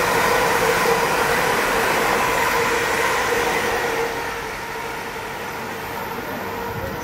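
Electric train passing through the station: a steady rail rumble with a whine from the traction equipment, dying down about four seconds in as the train moves away.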